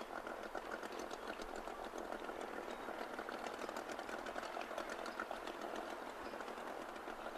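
Small outboard motor of a little motor boat running steadily, with a fast, even pulse.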